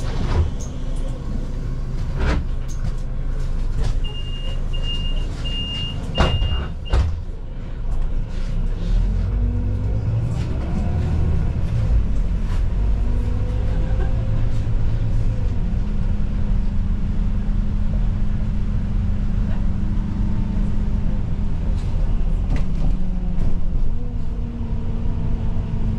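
Solaris Urbino 12 city bus heard from inside the cabin, its engine running with a few knocks and rattles. A run of short high beeps comes a few seconds in. Then the engine pitch rises and falls before settling into a steady drone.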